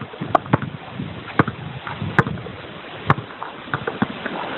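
Pole tennis (swingball) rally: the tethered ball struck back and forth with small rackets. Sharp knocks come roughly once a second, with fainter ticks between, over a steady background hiss.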